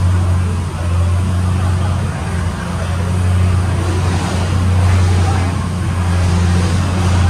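A car engine idling steadily: a constant low drone that holds one pitch.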